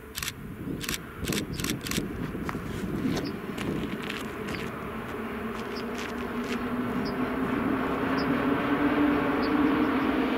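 EU07 electric locomotive hauling an Intercity passenger train past: a run of sharp clicks in the first two seconds, then the running noise of the locomotive and coaches on the track growing louder as the train draws nearer.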